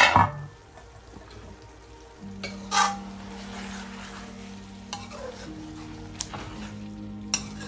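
A spoon stirring and scraping a chicken and bitter gourd (karela) curry in a large aluminium pan, with light sizzling and a few sharp knocks of the spoon against the pan's metal. It opens with a metal clank as the pan is uncovered after steam-cooking.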